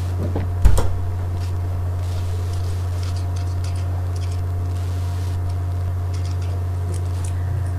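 A steady low hum, with one short thump just under a second in.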